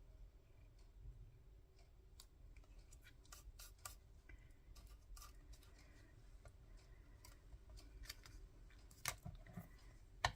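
Faint scattered clicks and light handling of paper and lace, with scissors snipping, the two sharpest snips about nine and ten seconds in.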